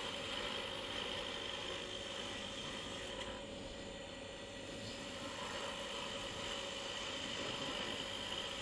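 Wood lathe running steadily while a small maple blank is turned: an even hum with a steady high whine over it.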